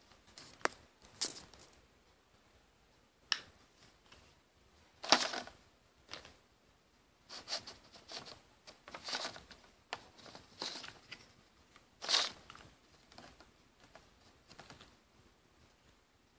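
Irregular rustling and scraping handling noise from a hand-held phone camera being moved and gripped, with a few sharp clicks. The loudest scrapes come about five and twelve seconds in.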